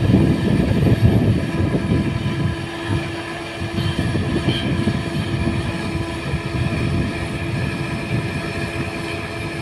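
Doosan DX225LCA crawler excavator's diesel engine running under load with a steady whine, as its bucket pushes a bamboo stake down into soft ground. The rumble is a little heavier for the first couple of seconds.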